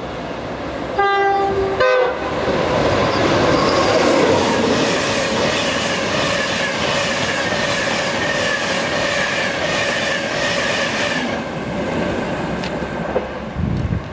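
An express passenger train sounds a two-tone horn about a second in, a lower note then a higher one. It then runs through the station at speed: a loud rushing with a rhythmic clatter of wheels, which fades away near the end.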